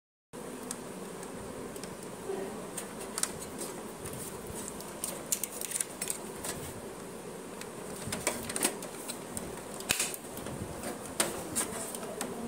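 Scattered light clicks and taps of a tool against plastic and metal parts inside an opened laser printer, around the pickup roller, over a steady low hum.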